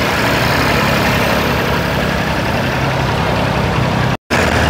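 Massey Ferguson 135 tractor's engine running steadily; the sound drops out for an instant near the end.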